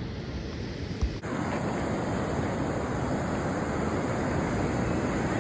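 Ocean surf washing steadily, with wind buffeting the microphone. About a second in there is a brief low thump, after which the wash is slightly louder.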